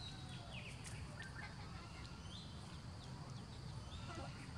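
Outdoor yard ambience: a steady low rumble with scattered short, high chirps and calls throughout.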